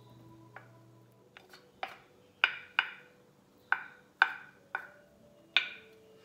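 Wooden spatula knocking and scraping against a plate as diced chicken is pushed off into a fry pan: a run of about seven sharp wooden knocks, each with a short ring.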